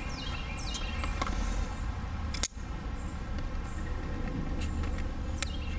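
Steady low outdoor rumble with one sharp click about two and a half seconds in.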